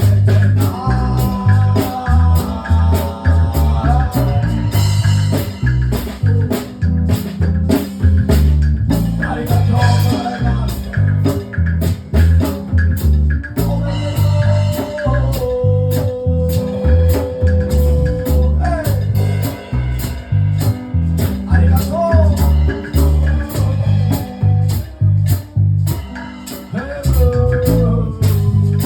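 Live band playing a song with a singer, guitar, bass and drum kit over a steady beat; midway the singer holds one note for about three seconds.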